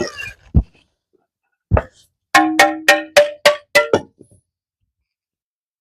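Sharp knocks on a hard, ringing object: three separate knocks, then a quick run of about seven ringing strikes, roughly four a second, stopping about four seconds in.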